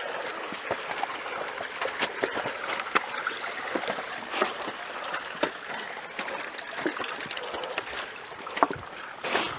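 Stream water trickling over rocks, with irregular footfalls and scuffs of runners climbing wet stone steps.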